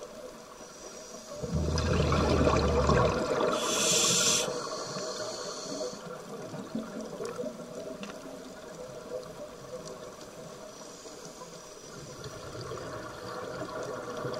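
Scuba regulator breathing underwater: a rush of exhaled bubbles about a second and a half in, then a short hiss of an inhale through the regulator, and another inhale hiss starting near the end, with quieter underwater noise between.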